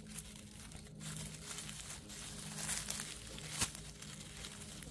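Freshly pulled garlic plants crackling and rustling as they are handled: the dry leaves and papery bulb skins give a run of small crinkling ticks, with one sharper click about three and a half seconds in.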